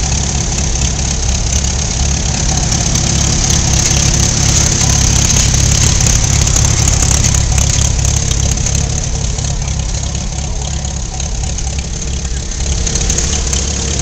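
Farm tractor engine idling steadily while the baler is hitched behind it.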